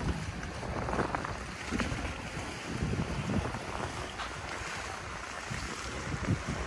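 Wind buffeting the microphone in uneven gusts, over the wash of small sea waves against the shore.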